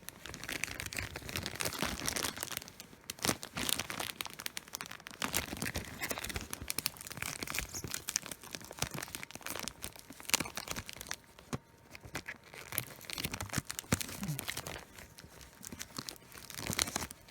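Plastic wrapping crinkling and a cardboard Blu-ray box set rubbing against it, in irregular bursts of crackles and clicks, as the tight-fitting box is worked out of its plastic.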